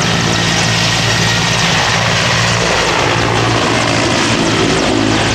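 Mil Mi-17 helicopter taking off, its twin turboshaft engines and five-blade main rotor running at take-off power. The sound is loud and steady, a low rotor hum under a dense turbine rush.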